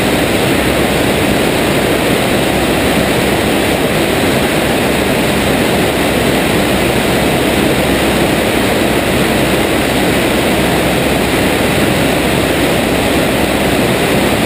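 de Havilland Tiger Moth biplane in flight, its four-cylinder Gipsy Major engine and propeller running steadily under a loud rush of wind over a camera mounted out on the wing.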